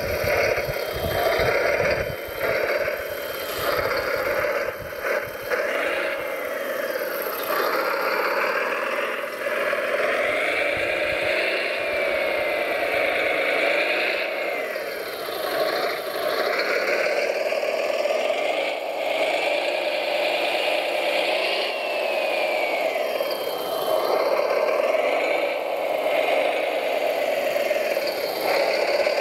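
Radio-controlled model construction machines at work, giving a steady engine-like drone with motor whines that rise and fall in pitch. There is some knocking and rattling in the first few seconds.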